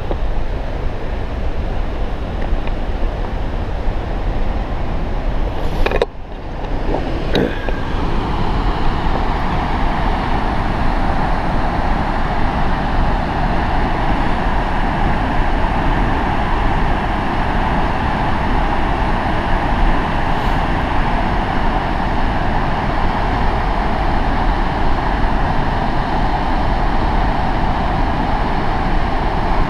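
Alexandra Falls, a large waterfall, giving a loud, steady rush of falling water. The sound briefly drops away with a couple of clicks about six seconds in, then comes back fuller and even.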